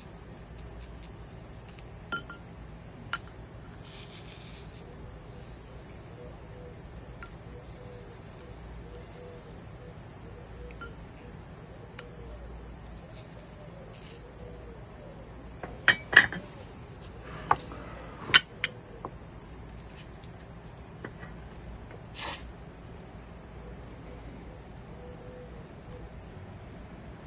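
Scattered sharp clinks and taps of glass and metal while a copper-foiled glass bevel is being soldered, with a cluster of louder ones about two-thirds of the way through, over a steady high-pitched hiss.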